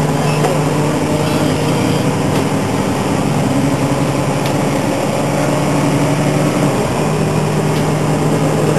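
Steady engine hum and rumble heard from inside a moving bus, with a low droning tone that shifts slightly in pitch a few times.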